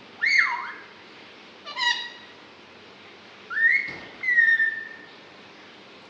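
Pet Alexandrine parakeet whistling: four short, loud whistled calls that swoop up and down in pitch, the last a longer call that falls away.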